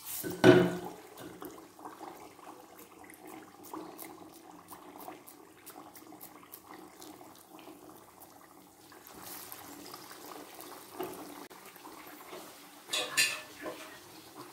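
Lentil vadai deep-frying in hot oil: a steady sizzle with many small crackles, surging louder about half a second in and again near the end.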